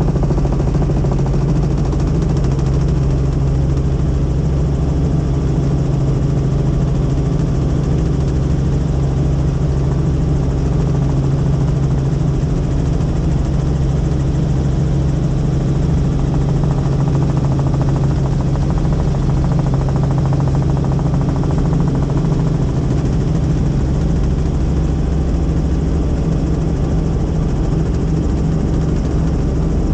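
Helicopter in flight: steady loud engine and rotor noise with a strong constant low hum.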